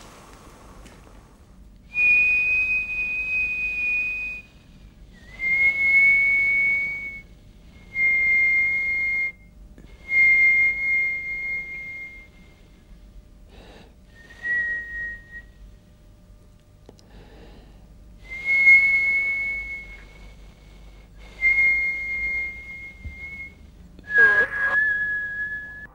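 A series of about eight steady, high whistle tones, each one to two seconds long with a breathy hiss under it, separated by short pauses. The pitch steps slightly lower over the series.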